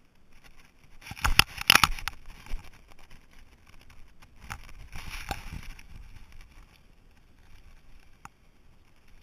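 Handling noise from a camera case held in the teeth during fly casting: a few knocks and rustles about a second in and again around five seconds, then quieter.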